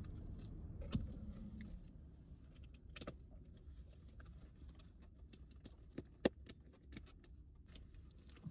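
Faint clinks and clicks of a handbag's metal chain strap being handled, a few sharper ones about a second in, at three seconds and twice near six seconds, over a low steady hum.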